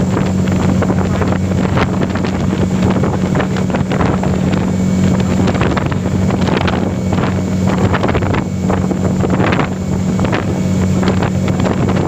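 Wind buffeting the microphone in gusts, over a steady low hum.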